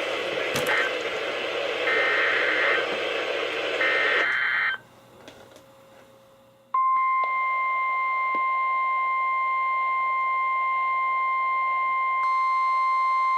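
NOAA Weather Radio broadcast heard on a weather-alert receiver: hissy static carrying two short screechy SAME digital header bursts, a brief near-quiet gap, then about seven seconds in the steady 1050 Hz warning alarm tone starts and holds. This is the signal that announces a new warning.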